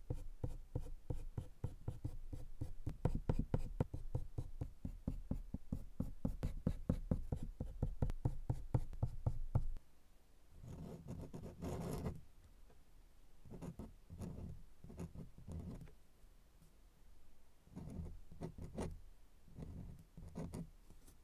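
Colored pencil scratching on paper in rapid short strokes, several a second. About ten seconds in it stops, and a metal dip-pen nib scratches across the paper in several short bursts of writing.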